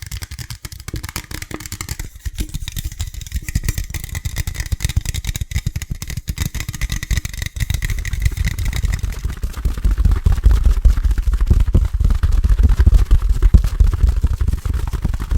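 Very fast, aggressive finger tapping on a hard object, a dense unbroken rattle of taps that turns heavier and deeper about ten seconds in.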